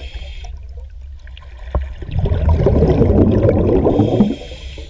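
Underwater bubbling and gurgling over a low rumble, swelling louder from about two seconds in to just past four seconds, with a single sharp click shortly before the swell.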